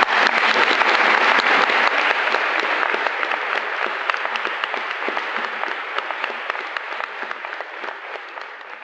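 Audience applauding, loud at first and slowly dying away.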